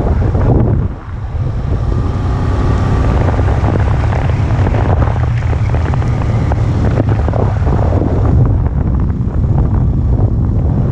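Motorcycle riding along at steady speed, its engine running under load with heavy wind noise on the camera microphone; the level dips briefly about a second in.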